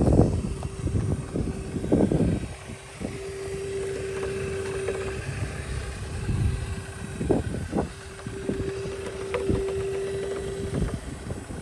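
Radio-controlled rock crawler (Redcat Gen8) crawling over rock. Its electric motor and gears whine in a steady tone under throttle, stronger in two stretches. Scattered knocks and scrapes come from the tyres and chassis on the rock, loudest in the first couple of seconds.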